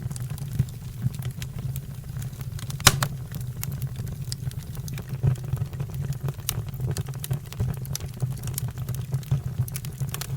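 Fire crackling with frequent sharp pops over a steady low rumble; the loudest pop comes about three seconds in.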